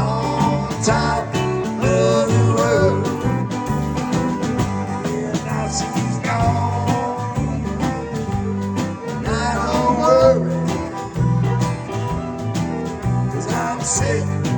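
Country-blues song with guitar accompaniment and a wavering lead melody line, playing steadily throughout.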